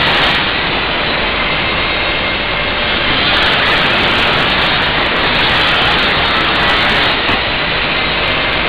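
Loud, steady roar of factory machinery noise filling a large workshop hall, even and unbroken with no distinct tones or knocks.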